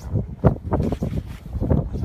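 Gusting snowstorm wind buffeting the microphone, a low rumble that surges and drops unevenly.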